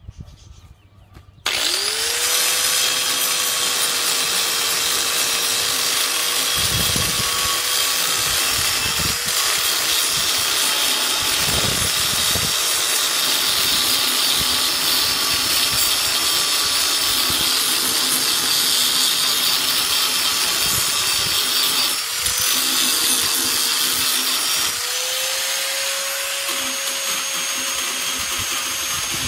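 Electric angle grinder switched on about a second and a half in, spinning up and then running steadily as its disc grinds a fish-mouth notch into the end of a thin metal tube. Its pitch sags briefly twice near the end as the disc bears into the metal.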